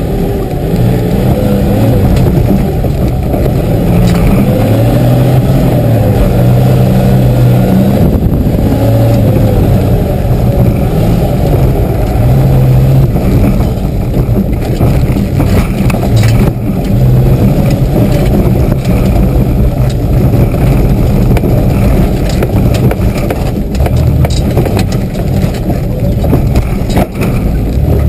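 Mitsubishi 4x4's engine heard from inside the cab, revving up and down as it is driven hard over a rough off-road track. Occasional knocks and rattles from the body come through over the bumps.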